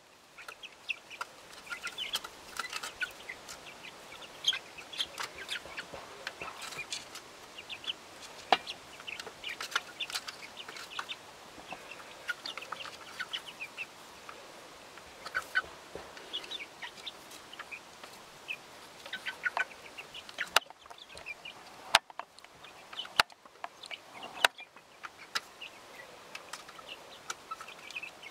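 A small flock of chickens clucking softly as they feed, with many short calls and scattered light taps. A few louder sharp clicks come about three-quarters of the way through.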